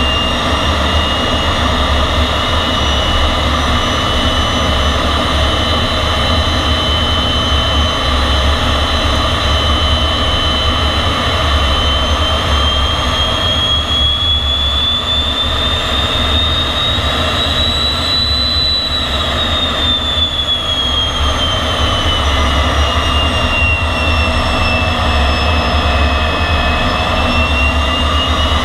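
MiG-15 jet engine running steadily: a deep rumble under a high turbine whine. The whine slowly rises in pitch around the middle, falls again over the following seconds, and starts climbing once more near the end as the throttle changes.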